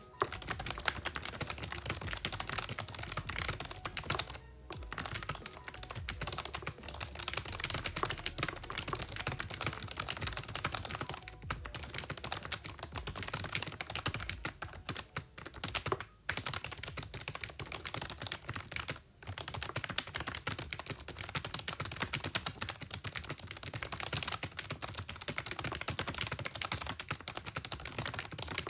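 Continuous fast typing on a cheap, slightly modded membrane-switch "gaming" keyboard: a dense run of keystrokes, broken by short pauses about four, sixteen and nineteen seconds in.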